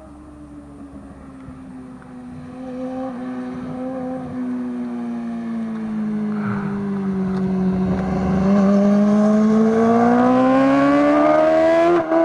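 Yamaha R6 inline-four sport bike engine being ridden hard: its note sags, then climbs steadily in pitch as it accelerates, growing much louder, with a brief break in the sound right at the end.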